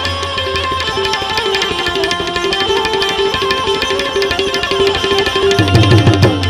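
Two tabla sets played together in a fast, dense rhythm over a repeating melodic line. Near the end the playing swells to its loudest, with deep bass-drum strokes bending in pitch.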